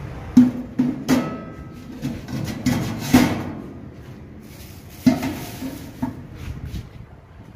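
Stainless steel bowl clanking against the steel rim of a breading table's round cutout as it is set in and moved, a string of sharp metallic clanks, each with a brief ring. The clanks come in three clusters: the first second or so, about three seconds in, and about five seconds in.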